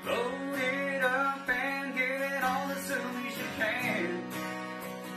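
Outro music: guitar-based music with a singing voice.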